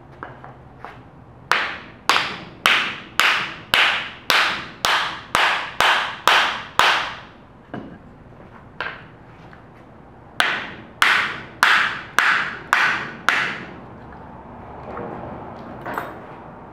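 Hammer blows on a lathe tailstock, knocking it loose from its base: a run of about eleven sharp strikes at nearly two a second, one lone strike, then a run of six, each with a brief ring.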